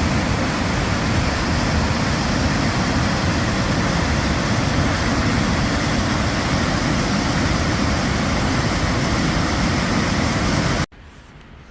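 Waterfall on the McKenzie River in full spring flow, roaring as a loud, steady rush of water. It cuts off abruptly near the end to a much quieter background.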